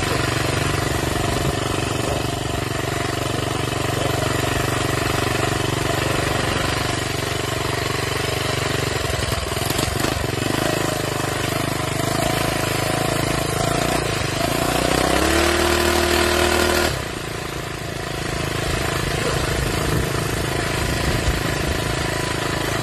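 Minibike engine running while riding. About two thirds of the way through it revs up to a higher steady pitch and holds, then drops off suddenly as the throttle is let go, before settling back to its lower running note.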